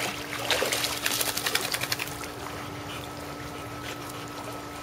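Boxer dog climbing out of a swimming pool: about two seconds of splashing and water streaming off its coat, then only a steady low hum.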